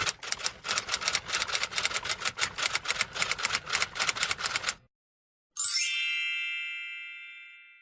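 Typewriter sound effect: rapid key strikes, about five or six a second, for nearly five seconds, then a single bell ding that rings out and fades.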